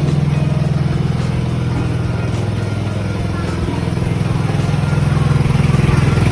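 Small tourist trolley train's motor running steadily with a low drone, heard aboard the moving, rattling trolley.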